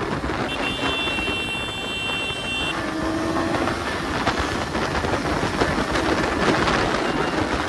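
Motorcycle under way, a KTM 250 Duke's single-cylinder engine under heavy wind rush over the microphone. A high, steady tone sounds for about two seconds near the start.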